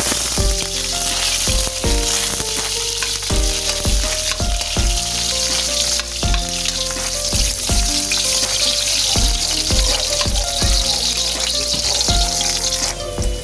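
Sliced onions and garlic sizzling in hot oil in a stainless-steel wok, stirred with a spatula; the sizzling drops away near the end. Background music with a steady beat plays underneath.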